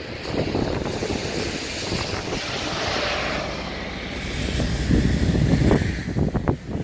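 Road traffic passing, a double-decker bus among it, with gusty wind buffeting the microphone. A hiss swells and fades near the middle, and a heavier rumble comes about five seconds in.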